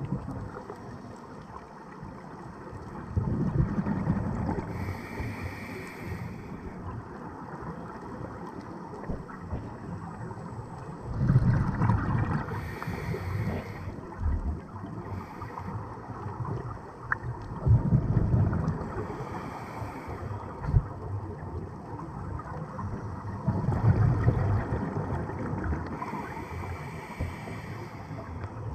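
Scuba diver breathing through a regulator underwater: a bubbling rumble of exhaled air about every six seconds, four breaths in all, each followed by a short higher hiss, over a steady watery background noise.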